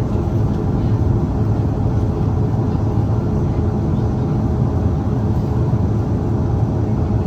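Airliner cabin noise during takeoff: a steady, loud low rumble of the jet engines and rushing air heard from inside the passenger cabin.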